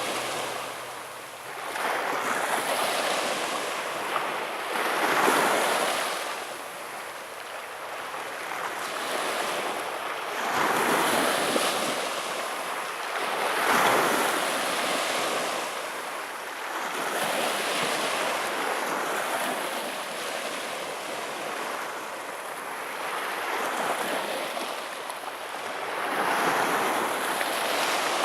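Black Sea surf breaking on the shore, the wash swelling and fading in irregular surges every few seconds.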